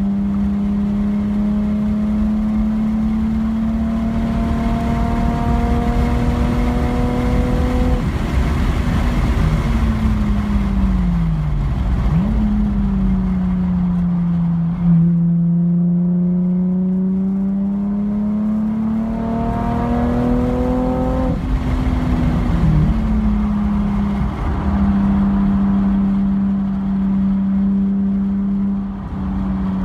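A car's engine at speed on a race track, heard from the cabin. It pulls with a slowly rising note for about eight seconds, falls away under braking with a quick blip near twelve seconds, climbs again under acceleration and drops sharply about twenty-one seconds in, then runs steady. Road and tyre rumble lies underneath, with a short knock about fifteen seconds in.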